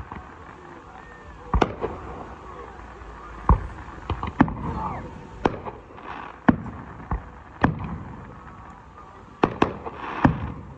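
Aerial fireworks going off: about a dozen sharp bangs at uneven intervals, some in quick pairs.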